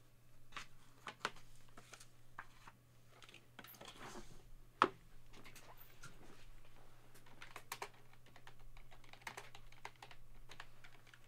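Faint typing on a computer keyboard: scattered light key clicks, with one sharper click a little before five seconds in, over a steady low hum.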